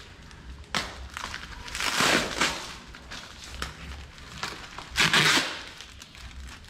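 Plastic mailer packaging crinkling and tearing as it is pulled open by hand, the wrapping firmly taped shut. There are short rips, with a longer one about two seconds in and the loudest about five seconds in.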